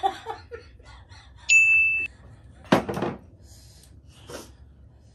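A short electronic chime sound effect added in editing: a bright tone that steps down and is held about half a second. About a second later comes a sudden loud burst, then faint voices.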